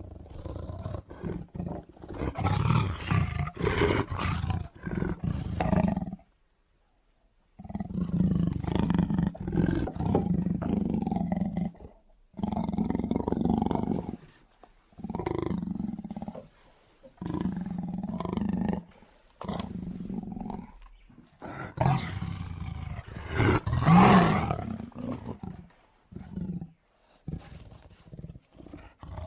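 Tiger roaring: a run of loud roars, each a few seconds long, separated by short pauses. There is one abrupt break into silence for about a second near the start, and the loudest roar comes late on.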